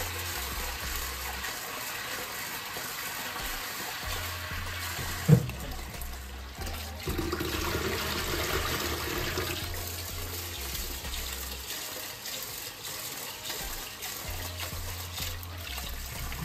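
Kitchen tap running into a rice cooker pot as rice is rinsed by hand, a steady splashing stream, with one sharp knock about five seconds in.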